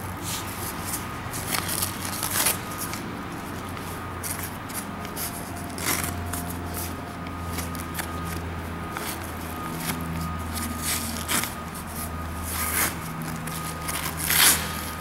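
Hook-and-loop (Velcro) strips being torn apart in several short rips as a massage chair's backrest pad is pulled off the seat pad, with leather pads rustling, over a steady low hum.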